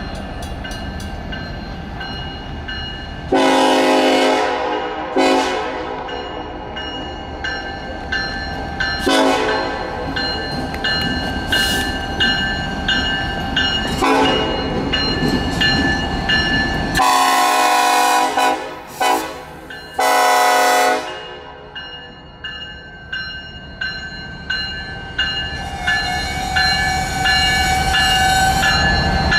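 Norfolk Southern's Illinois Terminal heritage diesel locomotive blowing its horn in a series of long and short blasts over the steady rumble of the locomotive. Railroad crossing bells ring in a steady rhythm throughout.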